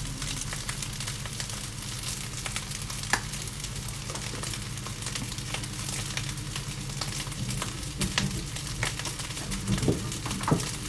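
Fried rice sizzling in a hot pan: a steady hiss with many small crackles and pops, a few louder ones near the end, over a steady low hum.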